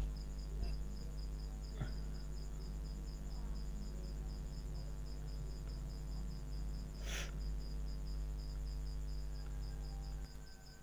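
Steady low hum of background noise on a desktop recording microphone, with a faint, fast-pulsing high tone over it and one brief soft noise about seven seconds in.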